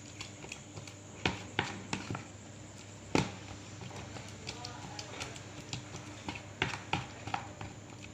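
A utensil clicking and scraping against a bowl as a thick paste of egg yolk, honey and horse fat is stirred until it forms a smooth dough: irregular taps, the loudest about three seconds in.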